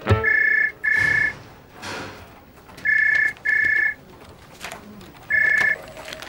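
Desk telephone ringing in the British double-ring pattern: short two-tone trills in pairs, about two seconds apart. The third ring comes as a single trill, cut short as the call is answered.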